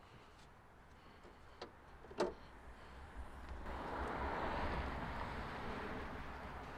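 Two light clicks about two seconds in as the hood latch of a 2020 Chevrolet Silverado 2500HD is released, then a soft rush of noise that swells and fades while the hood is lifted open.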